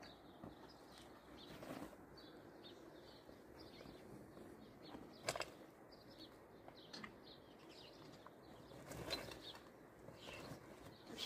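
Faint chirping of small birds, many short calls throughout. A single sharp click about five seconds in and a brief louder noise near nine seconds stand out.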